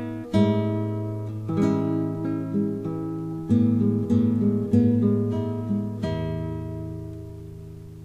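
Acoustic guitar music: plucked notes and chords, ending on a last chord about six seconds in that rings on and fades away.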